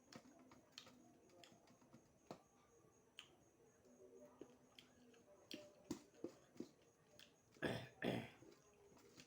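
A person eating beef: quiet chewing and mouth clicks and smacks, scattered through, with two louder, breathy mouth or throat sounds close together about eight seconds in.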